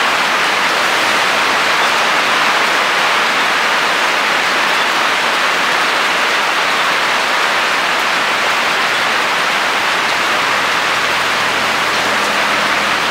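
Steady, heavy rainfall hissing evenly. A faint low hum comes in near the end.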